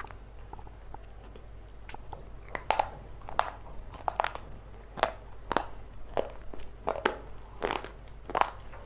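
Close-up crunching as a person bites and chews a hard, brittle piece of the "black stone" being eaten. After a quieter start of about two and a half seconds, sharp crunches come about once or twice a second.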